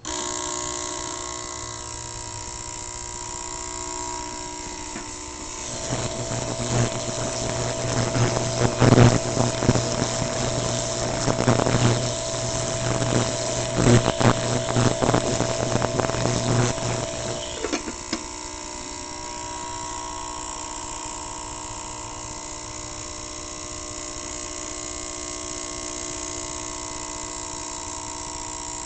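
Ultrasonic cleaner running: a steady buzzing hum with hiss that starts suddenly. From about six seconds in it turns louder and rougher, with irregular crackling, until about eighteen seconds in, when it settles back to the steadier hum.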